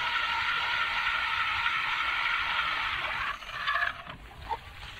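Electric ice auger drilling through thick lake ice: a steady motor whine that cuts out a little after three seconds in, followed by a short burst of noise as the auger is worked in the hole.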